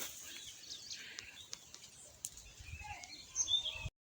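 Birds chirping and calling, with a few soft clicks and a low rumble near the end before the sound cuts off suddenly.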